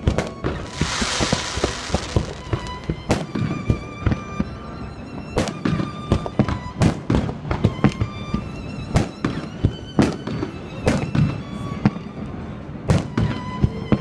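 Fireworks going off in a rapid, irregular series of sharp bangs, with a loud hissing crackle between about half a second and two seconds in. Music with strings plays steadily underneath.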